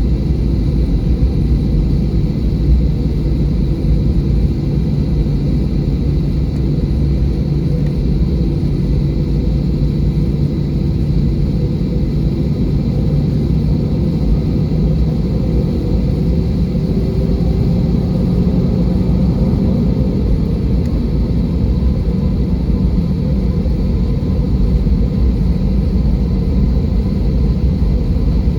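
Airbus A320 cabin noise heard from a window seat: a steady, loud rumble of engines and airflow with a low engine hum that rises slightly in pitch about two-thirds of the way through.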